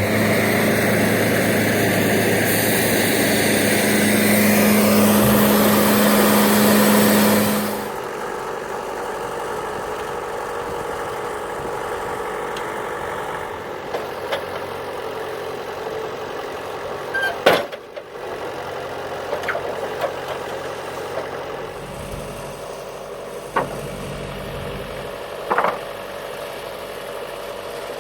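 Wood-Mizer bandsaw mill running loud with a hissing noise for about eight seconds, then dropping suddenly to a lower, steady engine idle. A few sharp knocks follow, the loudest about halfway through.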